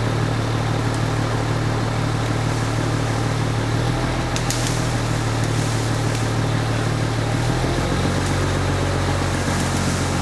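Crane engine running steadily, its note shifting about four seconds in and again about seven and a half seconds in as the crane works. A few faint clicks sound over it.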